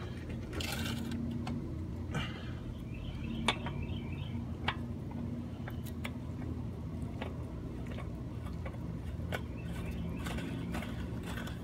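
Scattered light clicks and small scrapes as a spin-on oil filter is threaded onto its mount by hand, over a steady low hum.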